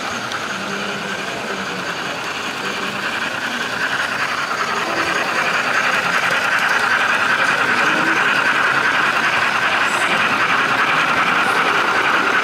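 Model trains running on a layout's track: a steady whir of small electric motors and wheels on rail, growing louder a few seconds in as a train runs close by.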